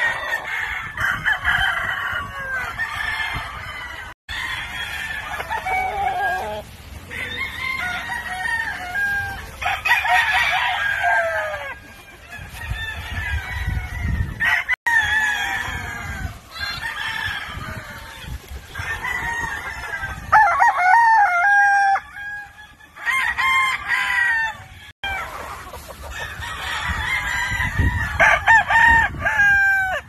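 Many gamefowl roosters crowing, their calls overlapping and following one another almost without a break, with some clucking.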